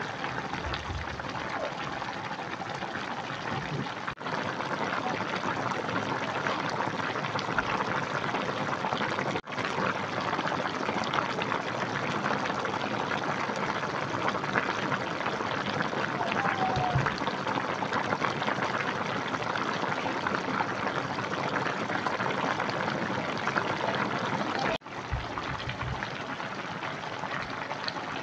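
Cassava-shoot and chicken soup boiling hard in a wok, a steady bubbling and crackling, broken by three brief cuts.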